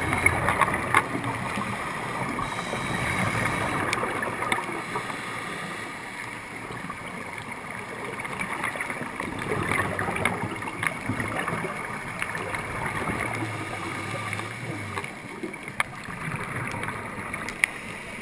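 Underwater noise heard through a waterproof action-camera housing: a steady muffled rush that swells and fades every few seconds, with scattered sharp clicks throughout.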